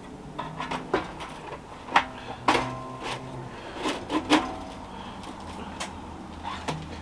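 Stainless steel twin-wall flue parts knocking and clinking as they are handled and fitted together: several sharp metallic knocks, some with a short ring, the loudest about two seconds in and again half a second later.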